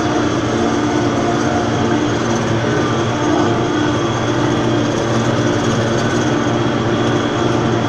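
Tractor diesel engine running steadily at constant revs, a continuous even hum.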